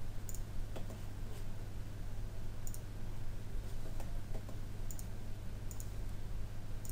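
Computer mouse button clicks, a handful of scattered single clicks over a steady low electrical hum.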